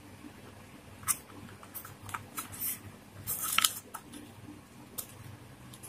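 Light, irregular clicks and taps from a smartphone being handled and its screen tapped, with a brief, louder scratchy rustle about three and a half seconds in.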